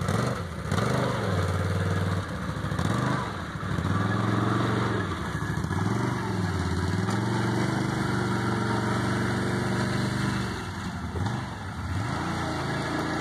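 Four-wheeler (ATV) engine revving: its pitch rises and falls several times as the throttle is opened and eased while the machine circles through the mud.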